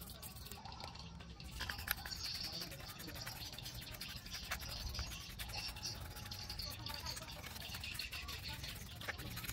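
A bristle paintbrush scrubbing a wet circuit board and a bank of plastic slide controls, with many quick scratchy strokes.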